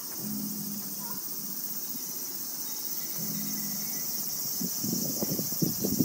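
A steady, high-pitched chorus of summer insects in the trees. A faint low hum comes and goes twice, and wind starts buffeting the microphone near the end.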